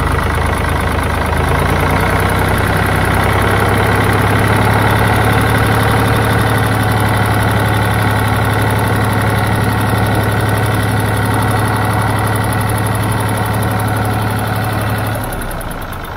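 1965 Ford 3000 tractor's three-cylinder engine running steadily at a fast idle with a little throttle. Near the end the engine note drops and quietens.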